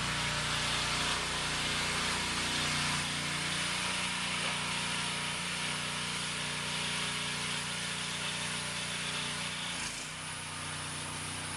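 Pressure washer's engine running steadily under a constant hiss.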